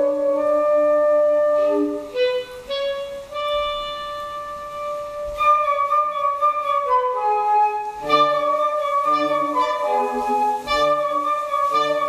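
Live chamber music for flute quartet (two flutes, alto flute, bass flute) and B-flat clarinet, playing sustained notes in several parts. The texture thins out for a few seconds early on, then grows busier, with low notes joining about eight seconds in.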